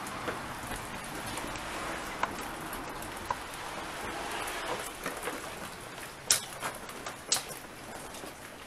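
Footsteps crunching and snapping on debris littering the floor, over a steady hiss; two sharper cracks stand out about six and seven seconds in.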